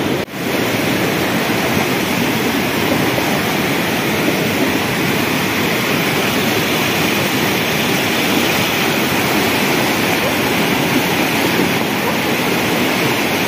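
Muddy floodwater from a rain-swollen hill stream rushing steadily in a continuous loud wash. It is the sound of a flash flood after very heavy rain.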